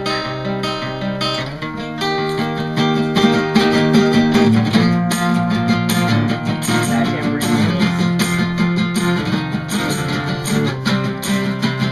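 A live band playing an instrumental passage, with strummed acoustic guitar and electric guitar. It grows louder about two seconds in.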